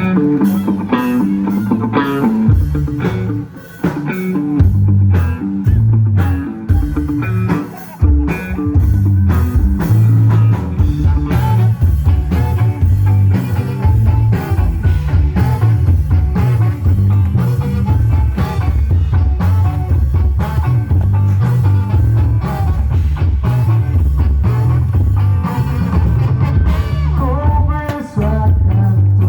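A live rock band playing an original song: electric guitar over bass and drums. The bass and drums come in about two and a half seconds in, after a brief guitar opening.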